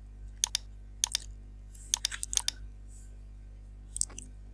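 Computer keyboard and mouse clicks: a handful of sharp strokes, mostly in pairs and small quick clusters, over a steady low electrical hum.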